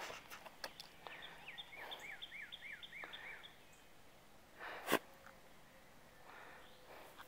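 Greyhound sniffing in the grass, letting out one sharp sneeze about five seconds in, the loudest sound. Earlier, a bird sings a run of six quick, falling notes.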